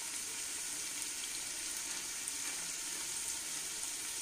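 Potatoes and cauliflower stems sizzling steadily in oil in a pot of spiced masala, with a high, even hiss and faint crackles. The masala is at the bhuna stage, being fried before the lid goes on.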